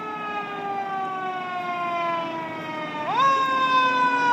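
Emergency vehicle siren wailing. Its pitch slides slowly down, then about three seconds in it sweeps quickly back up and starts falling again, getting louder.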